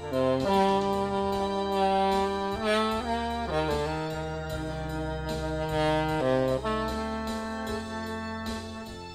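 Saxophone music with a backing band: the saxophone plays long held notes over a stepping bass line and a light steady beat.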